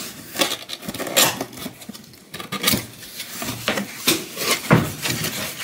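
Cardboard box being opened by hand: flaps pulled open with a string of irregular scrapes and rustles of cardboard rubbing on cardboard.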